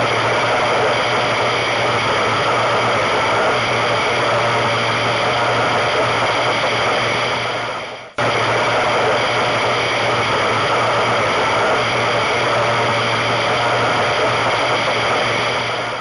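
Racing powerboat's engine running steadily at speed, heard from on board with a dense rush of wind and water over it and a steady low hum beneath. About eight seconds in the sound drops away and cuts straight back in.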